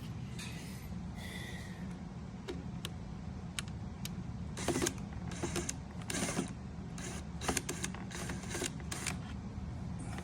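Cadillac Escalade dashboard trim being worked loose by hand: a run of sharp plastic clicks and short scrapes, most of them in the second half, over a steady low hum.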